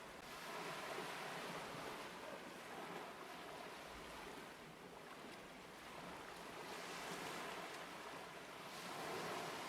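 Sea waves washing in and out, faint, swelling and fading slowly.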